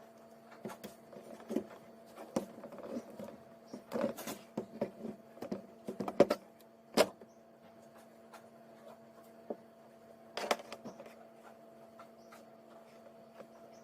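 Hand crimping tool squeezing an RJ45 connector onto an Ethernet cable: a scattered run of sharp clicks and clunks, the loudest about seven seconds in and again about ten and a half seconds in. A faint steady hum runs underneath.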